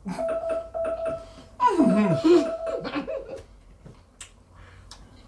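Google Assistant smart speaker timer alarm chiming in a repeating pattern of short tones, signalling that the 30-second timer has run out. A person laughs loudly about a second and a half in.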